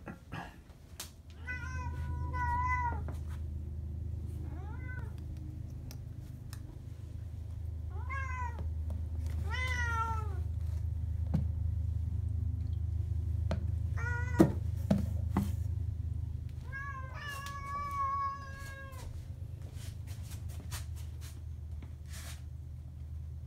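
Domestic cat meowing about six times: some meows long and drawn out, others short and rising in pitch. A low steady hum runs underneath, with a sharp knock about halfway through.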